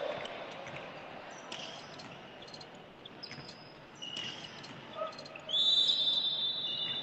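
A volleyball referee's whistle blown in one long, steady, high blast about five and a half seconds in, the signal to serve, ringing in a large echoing sports hall. Before it come a few scattered knocks and faint distant voices.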